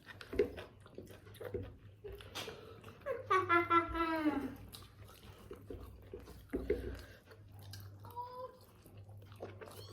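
Close-up eating sounds: chewing and small clicks from mouths and utensils, with one drawn-out vocal sound rising and falling in pitch about three seconds in.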